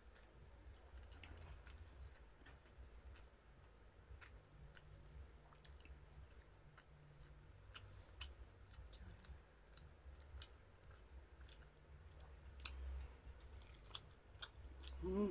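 Faint, close-miked chewing and mouth smacks of someone eating grilled chicken and rice, as small irregular clicks.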